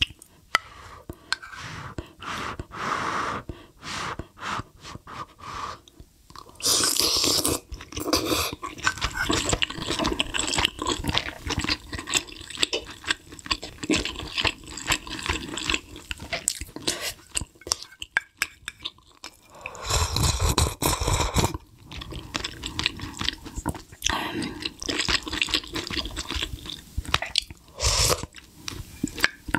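Close-miked eating: wet chewing and mouth smacks of juicy beef short-rib meat, with sips of spicy broth from a spoon. Louder stretches come about seven seconds in, around twenty seconds and near the end.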